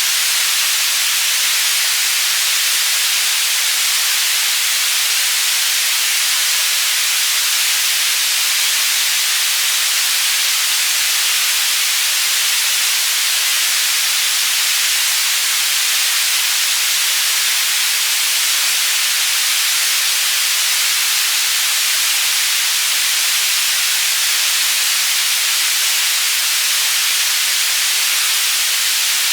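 Tinnitus-masking white noise panning between the left and right channels: a steady, unbroken hiss that is strongest in the treble, with little low end.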